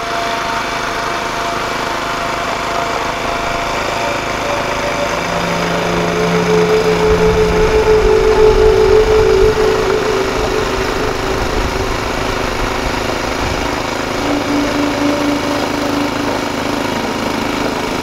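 Gas-powered two-stage snowblower engine running steadily as it clears deep snow and throws it, louder around the middle.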